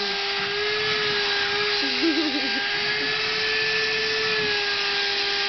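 Handheld vacuum running with a steady motor whine, its nozzle drawn through a cat's fur to pick up shed hair.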